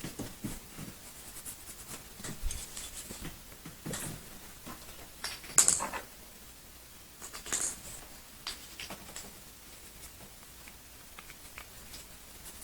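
Small metal parts of a CZ 75 SP-01 pistol being handled and pushed into place during reassembly: scattered light clicks and scrapes, with two sharper clicks about five and a half and seven and a half seconds in, as a part refuses to seat fully.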